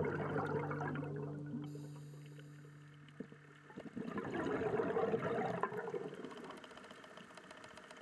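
A held music chord fades out over the first few seconds; then a gurgling, bubbling rush of water, recorded underwater, swells about four seconds in and fades away.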